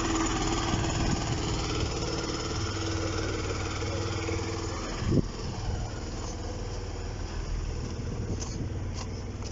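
Mercedes-Benz W108 280S's 2.8-litre straight-six engine idling steadily, with one short knock about five seconds in.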